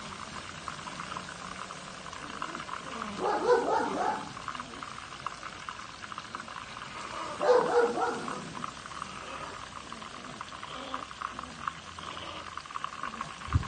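Chicken crackling and sizzling steadily in the hot oil of a FryDaddy electric deep fryer. Two short bursts of barking from playing pugs, a few seconds in and again about halfway, and a short thump near the end.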